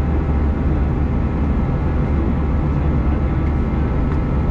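Steady cabin noise inside an Airbus A321-200 in flight: engine drone and airflow, a deep even rumble with a few faint steady tones above it.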